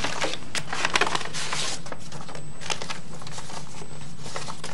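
Paper banknotes rustling and crinkling as they are handled and counted by hand, a run of short crackly flicks over a steady low hum.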